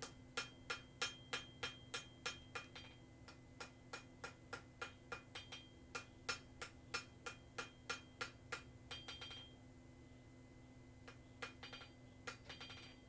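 Hand hammer striking a piece of leaf-spring steel on a small rail-track anvil while the blade of a hardie is forged and squared up. The blows come steadily at about three a second with a faint metallic ring, stop about nine seconds in, and a few lighter taps follow near the end.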